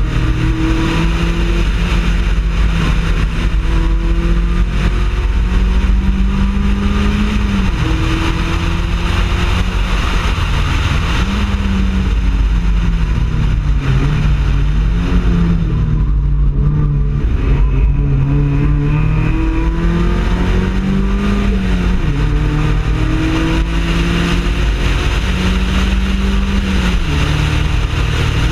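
Mazda Miata race car's four-cylinder engine at racing speed, revving up and shifting up several times, dropping in pitch with downshifts about halfway through, then accelerating and shifting up again. Steady wind and road noise runs underneath.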